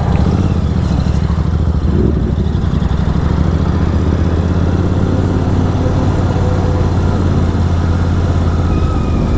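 Superbike engine with an aftermarket exhaust running at a steady cruise: a loud, even engine note with no revving.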